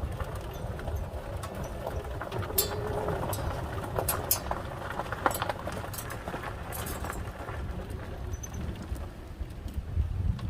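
Footsteps on a path while walking, with scattered sharp clicks and light jingles, over a steady low rumble on the microphone.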